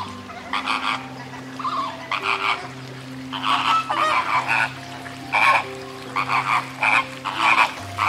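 A flock of flamingos calling: many short, harsh, goose-like honks that overlap and come in bunches, one after another.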